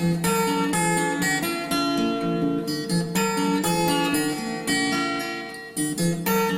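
Background music: strummed and plucked acoustic guitar playing steadily.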